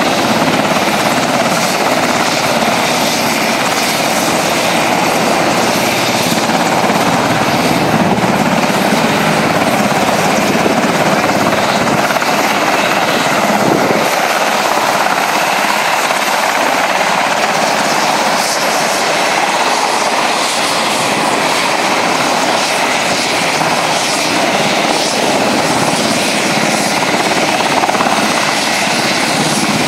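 Turbine helicopter running on the ground with its main rotor turning: a loud, steady rotor and engine noise with a thin high-pitched turbine whine above it.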